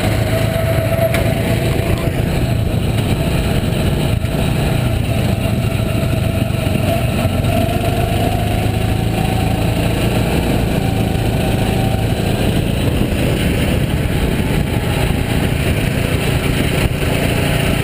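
Go-kart's small engine running steadily at speed, heard from on board the kart, its pitch holding nearly level with only slight rises and dips through the corners.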